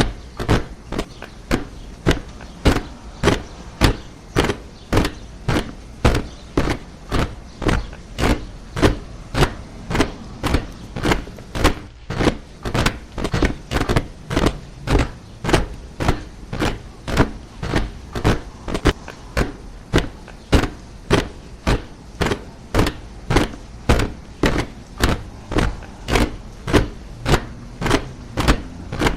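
A body of soldiers marching in step: boots striking the ground together in an even rhythm of about two steps a second, without a break.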